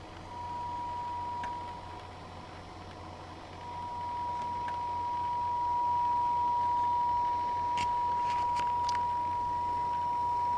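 A steady high-pitched pure tone from a kit-built function generator, heard through headphones, as its volume knob is turned down and back up. The tone fades low about two seconds in and comes back louder about four seconds in, with a few faint clicks near the end.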